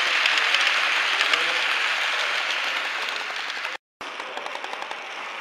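Model railway train running along the layout track: a steady rattling hiss of small wheels on rail joints. It cuts out for an instant about four seconds in and comes back quieter.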